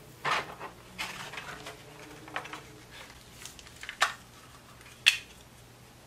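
Clear plastic packaging insert and wrapping being handled: a series of sharp plastic clicks and crackles, the loudest snap about five seconds in.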